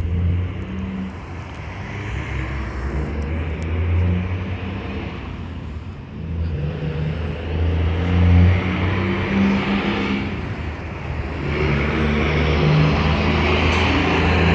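Fire engine's diesel engine running under load, its deep note swelling and easing, loudest about 8 seconds in and building again near the end as it accelerates.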